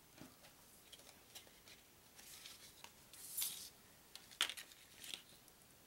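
Trivia game question cards being handled and swapped, faint: light clicks and rustling, a short slide a little past three seconds and a sharp click about four and a half seconds in.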